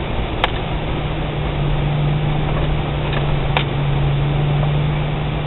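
Suzuki XL-7 driving, heard inside the cabin: a steady low engine drone over road and cabin noise, with two sharp clicks, about half a second in and about three and a half seconds in.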